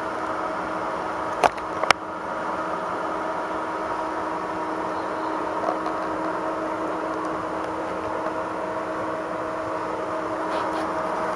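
Steady mechanical hum with a constant low tone, broken by two sharp clicks about a second and a half and two seconds in.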